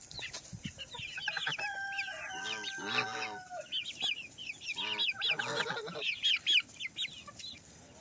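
A flock of chickens calling: steady high peeping from young birds, with louder, deeper clucks and calls from adult fowl about three seconds in and again around five seconds.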